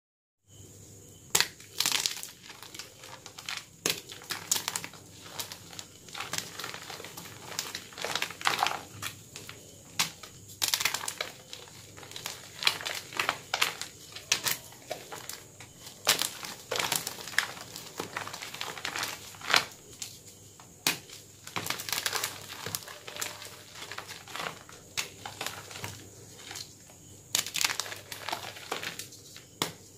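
Homemade gym chalk blocks crushed and squeezed in bare hands: irregular sharp crunches and cracks as the blocks break, with crumbling, powdery rustle between them.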